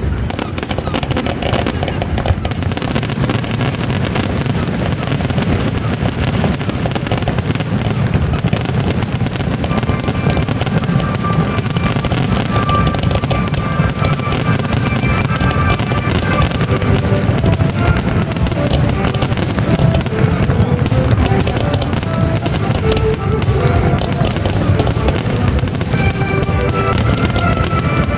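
Fireworks display going off continuously: a dense run of bangs and crackles, with music playing alongside from about a third of the way in.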